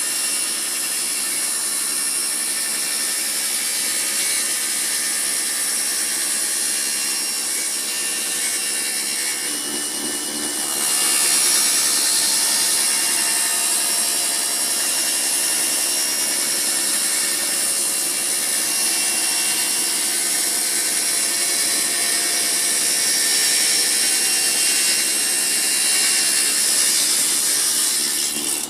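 Table saw running and cutting old wood: a steady high-pitched whine with sawing noise, getting louder about eleven seconds in.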